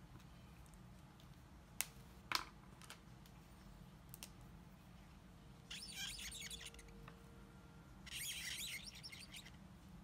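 Two sharp clicks about two seconds in, then a red marker pen scribbling on a card in two short runs of scratchy strokes as the cheeks are coloured in.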